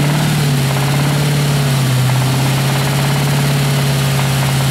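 1999 Ford Mustang GT's 4.6-litre V8 idling steadily, with a low knock that the owner suspects is rod knock.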